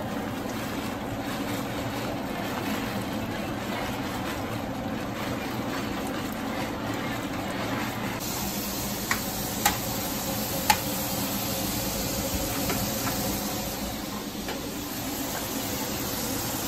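A pot of water at a steady rolling boil, hissing and bubbling, as dry elbow macaroni is tipped into it. Three sharp clicks come near the middle.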